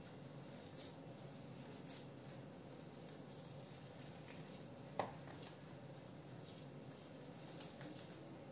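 Hands kneading a crumbly, floury içli köfte dough mixture in a plastic basin: faint soft squishing and rustling, with one sharp click about five seconds in.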